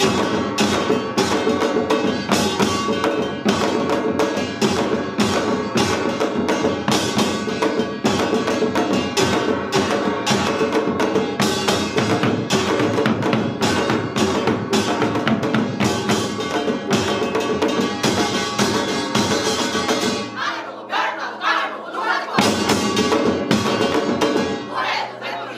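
Korean samul nori percussion ensemble of janggu hourglass drums and buk barrel drums playing a fast, dense rhythm in the Yeongnam style. Near the end the deep drum strokes drop out twice for a moment while lighter strokes carry on.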